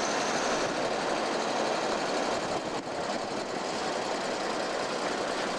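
Steady engine and road noise of a vehicle driving along a dirt street, heard from inside the vehicle, with a brief dip about three seconds in.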